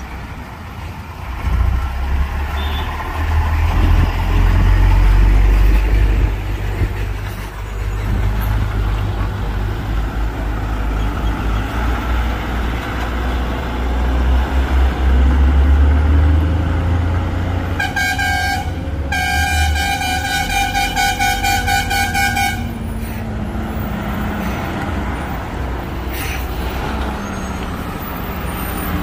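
Heavy goods trucks' diesel engines rumbling as they pass close through a tight bend. About two-thirds of the way in a horn sounds twice, a short toot and then a longer blast of about three seconds.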